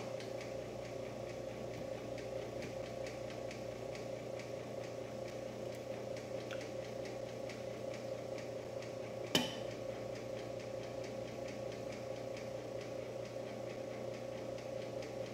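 Bread machine running its dough cycle: a steady motor hum with faint, evenly repeating ticks, and a single sharp click about nine seconds in.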